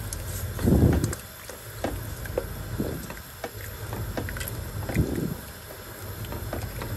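Liquid sloshing in a cooking pot of vegetable sauce just thinned with water and broth, with scattered light clinks of a utensil against the pot. A steady low hum runs underneath, and there are two louder swishes, about a second in and about five seconds in.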